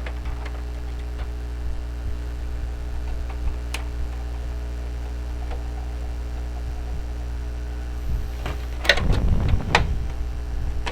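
Hard plastic clicks and knocks as a printer's casing is pried and handled during disassembly, with scattered faint clicks and then a cluster of sharper ones about nine seconds in, over a steady low hum.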